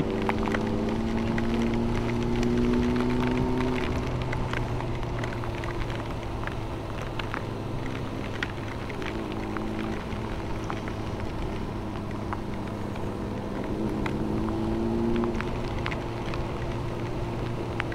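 Motorcycle engine running at riding speed in the rain, its pitch rising over the first few seconds and again near the end. Under it is a haze of wind and wet-road noise, with scattered sharp ticks of raindrops.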